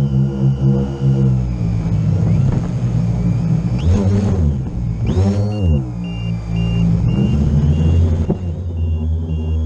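Multirotor drone's motors and propellers whirring, heard from its onboard camera. About four seconds in the pitch falls sharply as the throttle is cut for a fast drop, then rises again as the motors power back up to recover.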